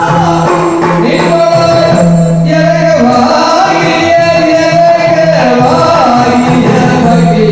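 Yakshagana music: a male bhagavata singing an ornamented, gliding melody over a steady drone, with drum accompaniment.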